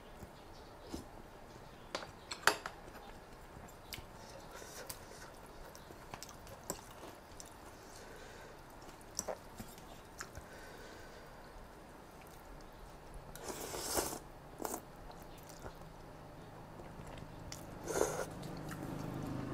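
Close-up mouth sounds of a person eating rice noodles in coconut curry with fresh vegetables: wet chewing with scattered small clicks and light crunches, and a sharp click about two and a half seconds in. Noodles are slurped twice, briefly, once around the middle and once near the end.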